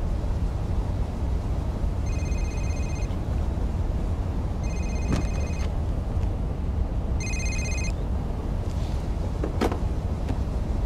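Steady low road and engine noise inside a moving car's cabin, with a telephone ringing three times, each ring under a second long and a couple of seconds apart.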